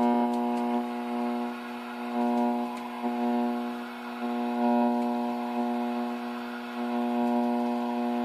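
Loud electrical hum from the Tram D201 radio's audio, swelling and fading several times as its chassis is twisted. This is the sign of bad chassis grounds: riveted terminal-strip ground points showing several ohms of resistance.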